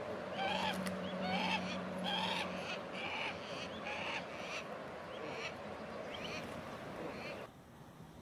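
A bird of prey calling: a series of short harsh calls about once a second, fading out after about six seconds.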